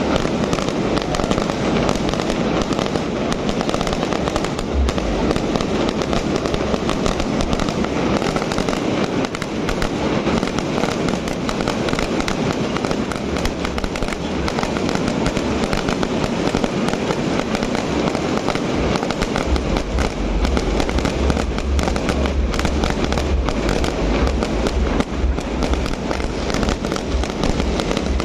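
Fireworks display going off without a break: a dense stream of rapid crackling bangs, with deep booms that come thickest in the last third.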